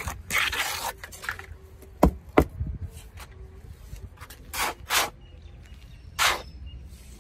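A hand scraper or trowel scraping gritty sand-and-cement mix across a mould, then short swishes of loose dry mix being scooped and thrown by hand. Two sharp knocks come close together about two seconds in.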